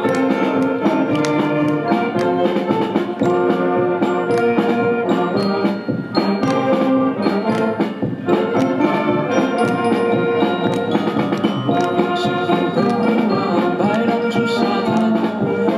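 Instrumental music, brass-like melody lines over a steady beat: the backing track of a pop song playing before the vocals come in.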